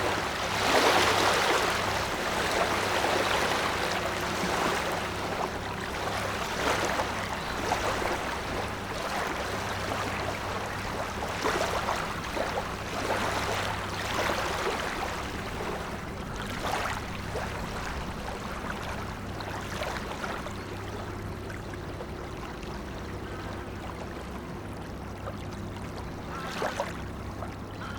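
Wake waves from a passing ship washing and splashing on a river, with repeated short splashes that slowly die down and grow quieter as the wake settles. A steady low hum runs underneath.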